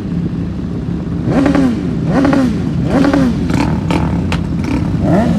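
Racing motorcycle engines revved in place at the drag-race start line, each rev blip rising and falling in pitch about once a second over a steady running engine. Several sharp cracks come in the second half.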